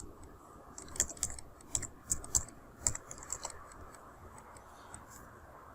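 Computer keyboard typing: a quick, irregular run of keystrokes that thins out after about three and a half seconds, leaving a faint hiss.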